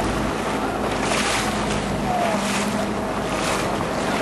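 A boat's engine running steadily under heavy wind noise on the microphone, with the sea rushing past the hull in repeated surges.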